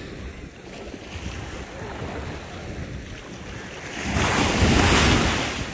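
Sea wind buffeting the microphone over small waves washing at the shoreline, swelling to a louder rush about four seconds in that lasts a second and a half.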